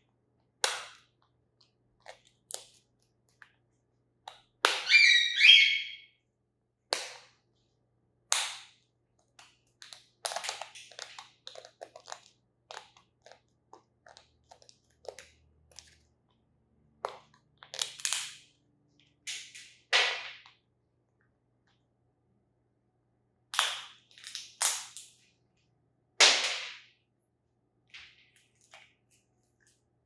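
Blue-and-gold macaw cracking and crunching a nut with its beak: sharp, irregular cracks with short pauses between them, and a longer run of crunching about five seconds in.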